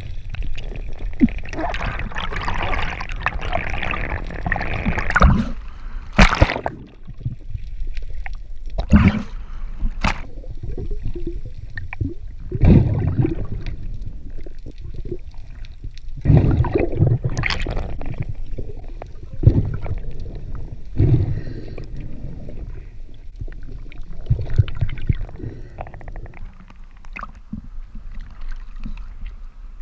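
Muffled underwater sound through a camera's waterproof housing: water rushing and gurgling past, with sharp knocks and thumps every few seconds.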